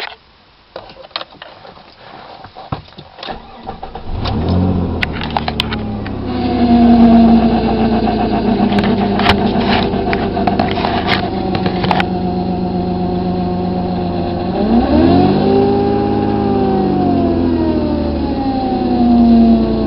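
1998 Dodge Avenger engine starting about four seconds in after a few clicks, then running with a steady whine, rising and falling in pitch once in a short rev midway. The whine is the unexplained problem noise the owner is trying to diagnose.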